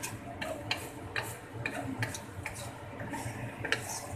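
Wooden spatula knocking and scraping against a wok while stir-frying noodles, a sharp tick about twice a second.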